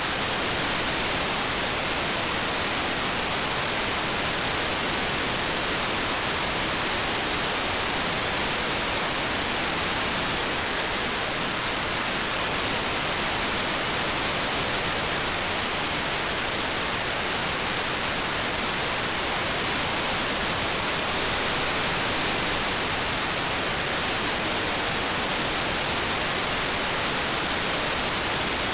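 RTL-SDR dongle's FM receiver putting out steady static hiss with no station audio coming through, even though it is tuned across the FM broadcast band: the receiver is failing to demodulate the stations it shows.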